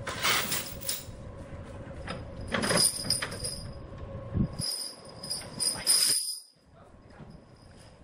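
Steel chains clinking and jangling in a run of sharp rattles as they are handled around a large log on a truck trailer, over a steady low hum.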